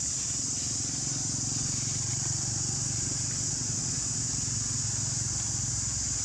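Steady forest ambience: an unbroken high-pitched insect drone over a low, constant rumble.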